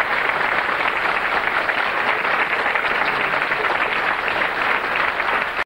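Television studio audience applauding: a dense, steady patter of many hands clapping.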